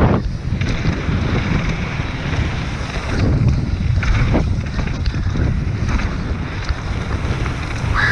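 Heavy wind buffeting the microphone of a camera on a mountain bike descending a downhill trail, with scattered clicks and rattles throughout and a brief squeal falling in pitch at the very end.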